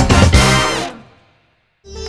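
Intro music with a drum beat that fades out about a second in, a short gap of silence, then different background music starts near the end.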